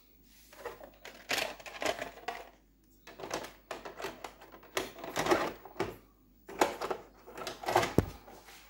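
Plastic clicks and rattles from a VHS cassette being picked up and handled, in several short irregular bunches, with handling noise as the camera moves.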